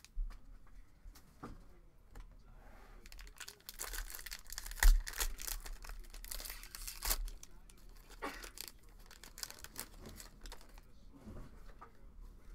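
Foil wrapper of a Topps baseball card pack being torn open and crinkled by hand. A dense crackling of tearing foil runs from about three and a half seconds in for about four seconds, with scattered quieter rustles and clicks around it.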